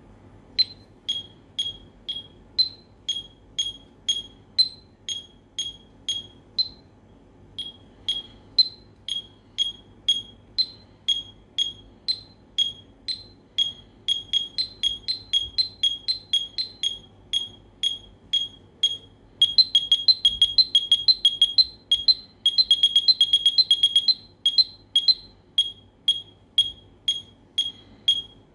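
Seiko DM51 digital metronome beeping at 120 beats per minute, with a higher accent beep on every fourth beat. It stops briefly about seven seconds in. From about halfway through, extra beeps fill in between the beats, growing denser and louder for several seconds before it returns to the plain beat.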